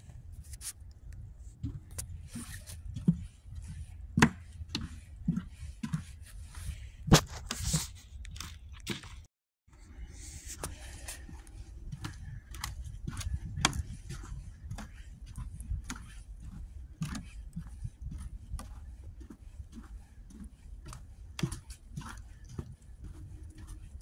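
Walking footsteps crunching on thin snow over dry leaves, about one to two steps a second, over a low steady rumble on the microphone. The sound cuts out briefly about nine seconds in, then the steps go on.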